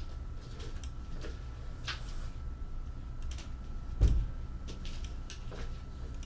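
Scattered light clicks and one dull thump about four seconds in, over a steady low hum and a faint steady high-pitched tone.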